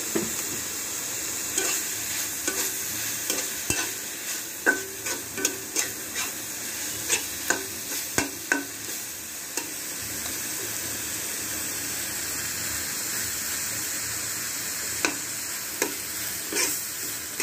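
Shrimp-and-onion masala sizzling in oil in a black karahi (wok), stirred with a metal spatula that clicks and scrapes against the pan. The masala is being fried until its raw spice smell cooks off. The clicks come in clusters, with a stretch of mostly steady sizzling in the middle.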